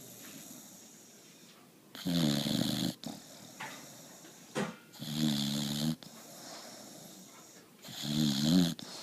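Boxer puppy snoring: three snores about three seconds apart, each lasting about a second.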